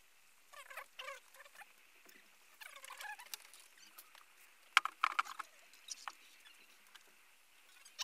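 Handling noise as a bass guitar is strapped on and its player sits down: a few short squeaks and creaks, then a cluster of sharp clicks about five seconds in. No notes are played.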